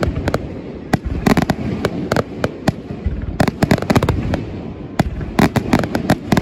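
Aerial firework shells bursting in a rapid barrage: many sharp bangs in quick succession over a low rolling rumble of echoes off the surrounding mountains, with a brief lull about three seconds in.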